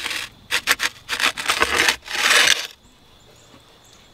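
Wooden pizza peel scraping and knocking against the stone floor of a brick wood-fired oven in several short rasping strokes, stopping a little under three seconds in.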